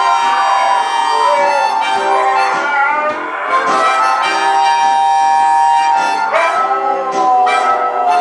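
Blues harmonica playing held notes while several huskies howl along, their howls sliding up and down in pitch over the music.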